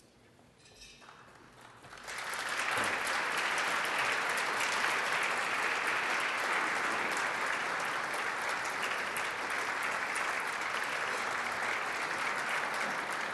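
Audience applauding. The clapping breaks out about two seconds in and then holds steady.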